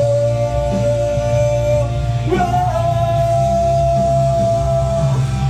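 A male singer holds two long sung notes into a handheld microphone, the second a little higher and lasting nearly three seconds. Under the voice runs a rock backing track.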